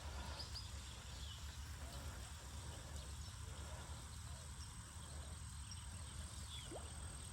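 Outdoor lakeside ambience: a steady low rumble of wind on the microphone, with faint, scattered bird chirps and a thin, steady high insect drone.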